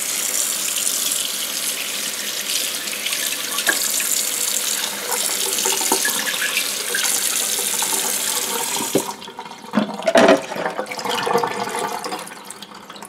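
Kitchen faucet running, its stream splashing onto fish fillets on a plate in the sink, cutting off about nine seconds in. A few knocks and wet handling sounds follow.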